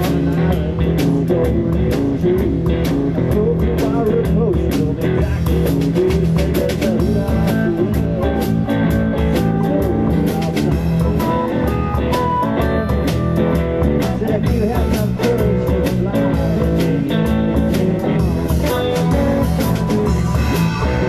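Blues band playing live: electric guitar, drum kit with a steady beat, and harmonica, all amplified.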